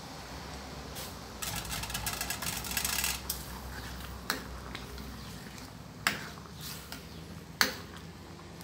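Metal ladle stirring bananas in coconut milk in a stainless steel pan: a couple of seconds of stirring and sloshing, then several sharp clinks of the ladle against the pan.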